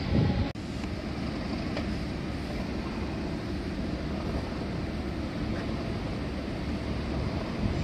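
A passing train's loud noise cuts off abruptly about half a second in. It gives way to steady, low background noise at a railway station.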